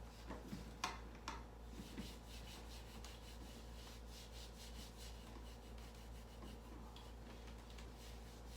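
Faint handling sounds: a few sharp clicks about a second in, then a run of quick, evenly spaced rubbing strokes over a steady low electrical hum.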